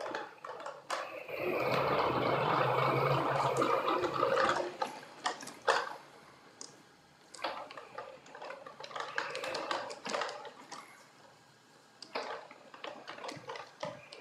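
Pepper humanoid robot's motors whirring as it rolls across a parquet floor on its wheeled base. The sound is loudest for a few seconds near the start, then comes and goes in shorter, quieter stretches.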